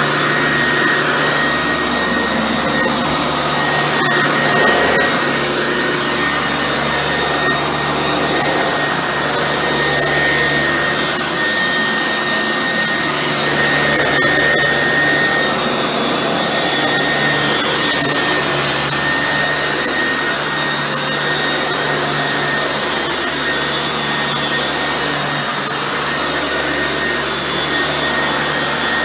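Eureka Bravo 9206 upright vacuum running while pushed over carpet: a steady motor and airflow rush with a high whine. The motor is on its first run after a partial rebuild, with one of its two bearings replaced.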